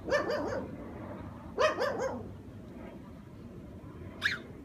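Dog barking: a short run of barks at the start, two or three more about a second and a half in, and one short high yelp near the end.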